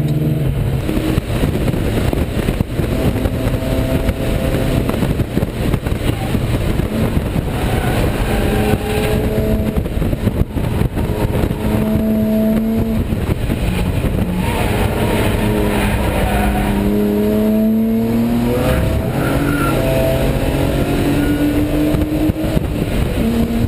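BMW E36 race car's engine heard from inside the cabin, running hard on track, its pitch climbing and dropping back again and again as it accelerates and shifts, over steady road and wind noise.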